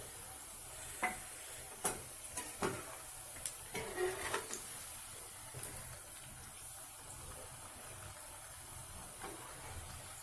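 Small urad dal vadas frying in hot oil in a pan: a steady faint sizzle, with a handful of clicks and scrapes of a spoon against the pan between about one and four and a half seconds in.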